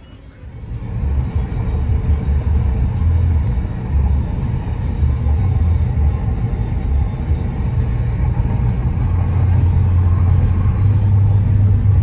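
Car driving along a city road, heard from inside the cabin: a loud, steady low road and engine rumble starting about a second in, with music playing along.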